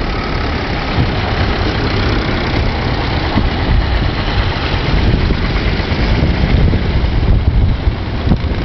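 Vintage tractor engines, a red Massey Ferguson and then a blue Ford, running steadily as the tractors drive past close by one after another. A dense low rumble with wind buffeting the microphone.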